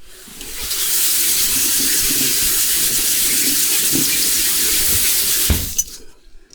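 AI-generated sound effect playing back: a steady rush like water running from a tap, swelling in over about a second and ending abruptly with a knock about five and a half seconds in.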